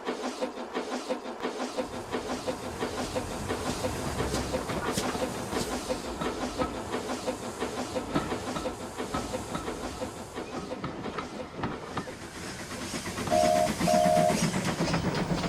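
Steam locomotive running, with rhythmic exhaust beats and hiss and wheels clattering over the rail joints. Near the end, two short whistle toots sound over a louder low rumble.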